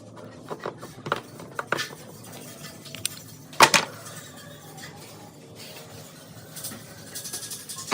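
Light metal clinks and taps of small parts being handled, a few sharp ticks in the first two seconds and one louder clink about three and a half seconds in.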